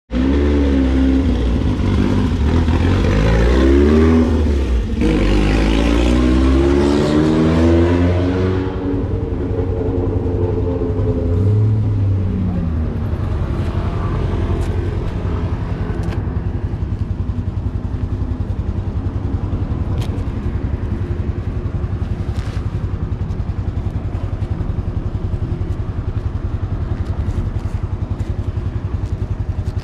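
Italika RT200 motorcycle's 200 cc engine revved up and down repeatedly for about eight seconds, then settling to a steady idle, with one short throttle blip around twelve seconds in.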